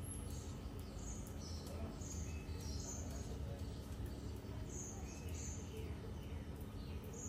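Small birds chirping: short high chirps repeating every half second or so, with a few falling calls, over a low steady outdoor rumble.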